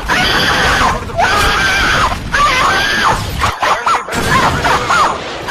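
Several high-pitched screams in a row, each rising and falling in pitch, with a short break about two thirds of the way through.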